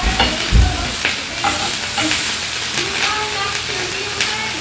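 Thin-sliced beef brisket and mushrooms sizzling steadily on a grill pan over a portable gas stove, with a few sharp clicks of metal tongs against the pan. A low thump sounds about half a second in.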